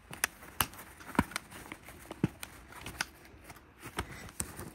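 Handling noise from a Lexman LX M 1000 handheld digital multimeter: about a dozen sharp, irregular plastic clicks and taps as a hand grips and moves the meter and its rotary dial, over faint rustling.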